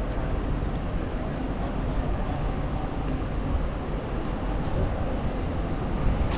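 Steady low rumble of city street ambience, like traffic noise, with no single event standing out.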